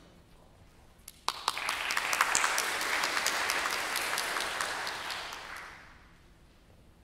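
Audience applauding: a few scattered claps about a second in, swelling into full applause, then dying away near the end.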